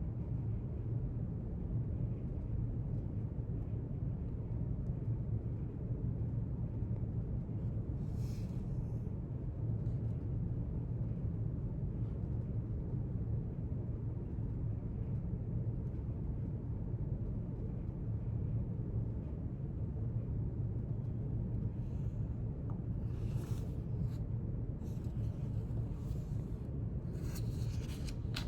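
Steady low room hum throughout, with brief scratchy paper sounds from note-taking about eight seconds in and again several times near the end.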